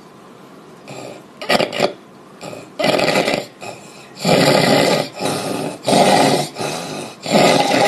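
A person snoring loudly: a run of short snores about a second apart, starting after a quiet first second.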